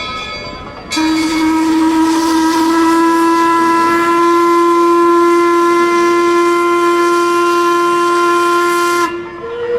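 Steam whistle of the Mark Twain sternwheel riverboat blowing one long, steady blast with a hiss of steam. It starts about a second in, after a brief bell tone, and stops about nine seconds in.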